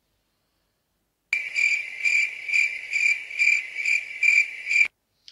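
Crickets chirping in an edited-in sound effect, an even pulse of about two chirps a second, starting after a second of dead silence and cutting off abruptly: the stock cue for an awkward silence.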